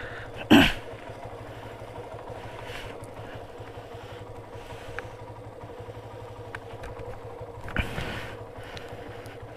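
Motorcycle engine idling steadily, with two short louder sounds over it, about half a second in and again near eight seconds.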